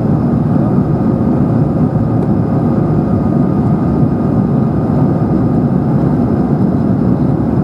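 Steady cabin roar inside an Airbus A220-100 on approach with flaps extended: rushing airflow and its Pratt & Whitney PW1500G geared turbofan engines, a deep, even rush with faint steady tones in it.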